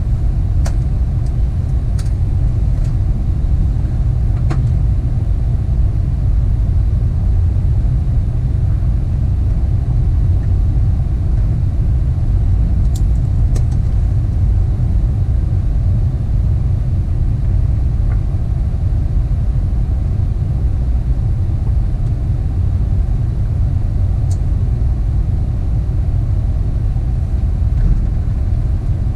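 Steady low rumble inside an Airbus A380 cockpit as the airliner rolls along the runway after landing, with a few faint clicks.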